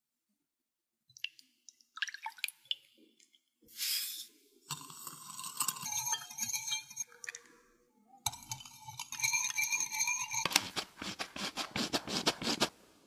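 Kitchen prep sounds in turn: a soft crumbly tearing of a baked chocolate cupcake, then a wire whisk stirring liquid in a glass bowl with ringing clinks of metal on glass, then a quick even ticking, about six a second, as flour is sifted through a sieve.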